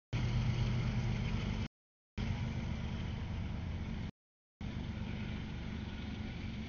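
CSX diesel freight locomotive running as the train approaches, a steady low engine rumble. The audio cuts out completely twice for about half a second.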